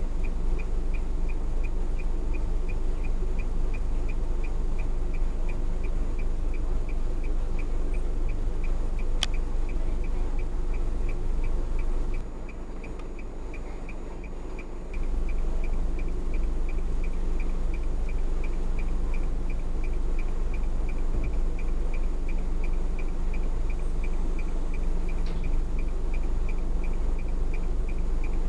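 Dashcam in-cabin audio of a car standing in traffic: a steady low rumble with a regular light ticking, about two ticks a second. There is one sharp click about nine seconds in, and the level dips for about three seconds around twelve seconds in.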